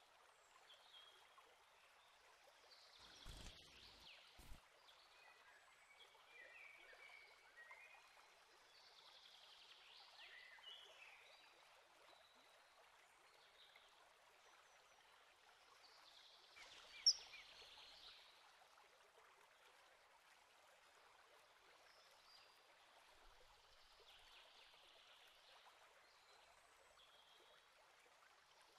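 Near silence: faint riverside ambience, a soft steady hiss with scattered faint bird chirps. There are a couple of low thumps about three to four seconds in and one brief sharp click or chirp about seventeen seconds in.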